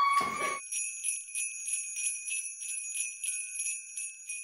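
A voice's held cry cuts off about half a second in, then jingle bells shake in a steady rhythm, slowly fading away.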